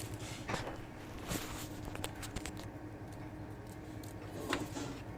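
Faint scattered taps and rustles of hands and a wire working inside a twin-tub washing machine's spin-dryer housing, fishing the spin-brake cable up into place, over a low steady hum.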